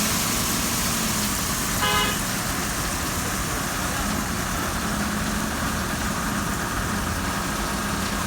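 A single short truck-horn toot about two seconds in, over steady engine and traffic noise.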